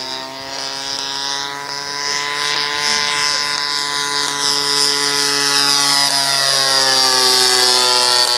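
Propeller-driven model airplane's 20cc DLE single-cylinder two-stroke petrol engine running steadily in flight. It grows louder as the plane comes in low, and its pitch drops as it passes by near the end.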